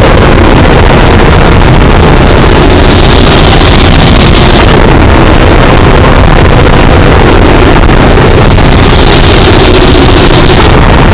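Harsh noise music: a constant, clipped wall of distorted noise at full volume. A high whistling band slides slowly downward twice, starting about two seconds in and again about eight seconds in.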